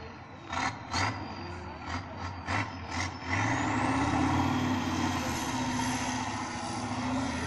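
Diesel engine of an off-road trial truck working over a dirt mound. A few short hisses come in the first three seconds. Then the engine is revved harder and held, with a high whine rising over it.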